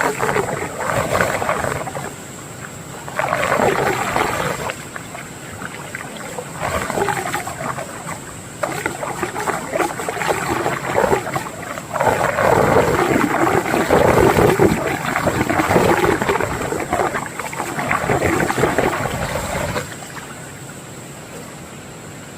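Water swirling in a whirlpool in a stream, loud in uneven surges lasting from one to several seconds, over a quieter steady rush of running water.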